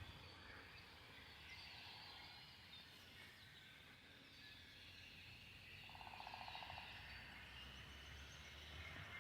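Faint marsh chorus of birds chirping and calling, scattered short calls throughout. About six seconds in comes a brief low pulsed trill.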